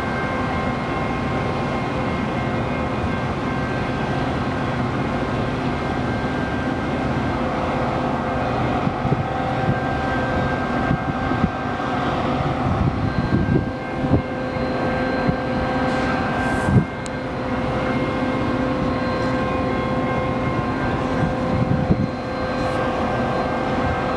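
Metra commuter train with a diesel locomotive at the station platform: a steady engine rumble with constant humming tones over it. A few short knocks come in the second half, one sharper than the rest.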